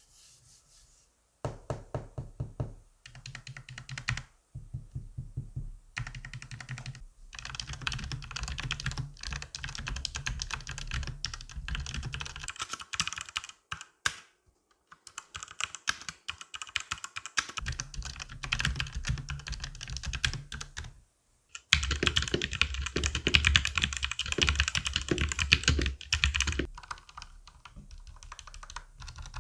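Fast typing on a mechanical keyboard with Outemu red switches and round typewriter-style keycaps: a dense clatter of keystrokes in runs of several seconds broken by short pauses. The keystrokes sound a bit muffled, which the owner puts down to the denser keycaps.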